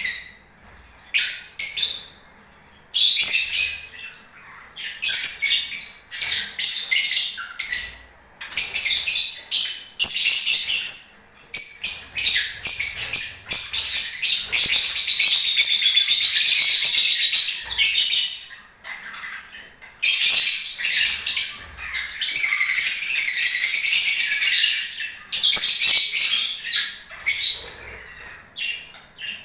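Lovebirds singing: shrill, high chattering in repeated bursts of one to a few seconds with short pauses between, and one longer unbroken run of about six seconds in the middle.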